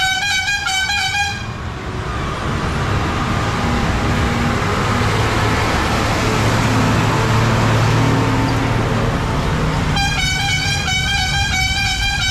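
A vehicle horn sounding in a quick series of pitched toots, once briefly at the start and again for a few seconds near the end, over a heavy engine running and road noise.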